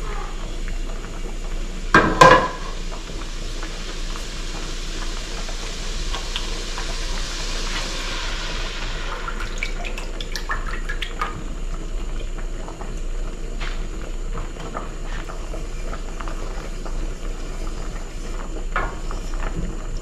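Heavy cream poured into a hot skillet of melted butter over a gas burner, hissing and bubbling as it goes in, the hiss fading after several seconds; then small clicks and scrapes of a spoon stirring the sauce. A short loud clatter about two seconds in.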